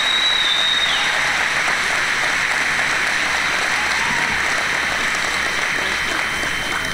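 Audience applauding steadily, easing off slightly toward the end, with a brief thin high tone over it in the first second.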